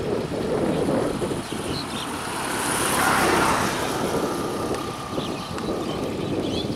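New Holland TT55 tractor's diesel engine running steadily as it works a rotary tiller through a muddy paddy field, growing louder about three seconds in, then easing.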